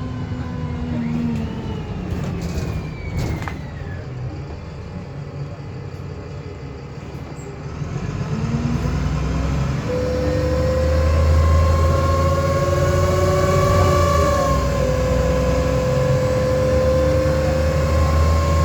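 VDL SB200 bus (Wright Commander) engine and drivetrain running. There is a falling whine in the first few seconds, then the bus grows louder about eight seconds in, and a strong, steady whirring whine sets in from about ten seconds and holds.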